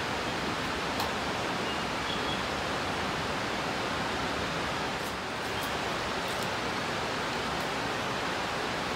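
Steady, even rushing noise with no change in level, with a few faint light clicks and a couple of brief faint high chirps about two seconds in.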